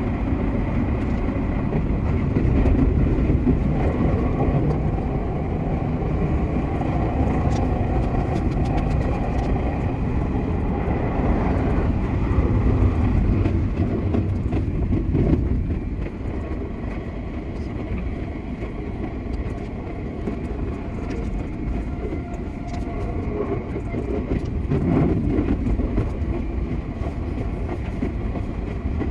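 Sotetsu 8000 series electric train running on the line, a steady rumble of wheels and track with a run of sharp clicks about a quarter of the way in; the running noise eases a little from about halfway.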